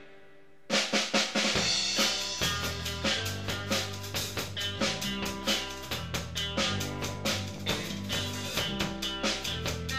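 Music with a steady drum beat, guitar and bass; it drops out briefly at the start and comes back in under a second in.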